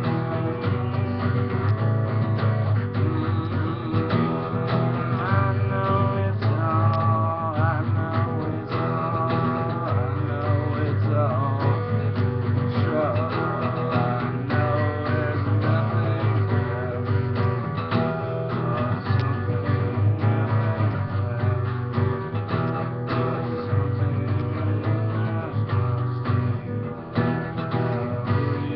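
Acoustic guitar strummed steadily, chords played on and on without a break.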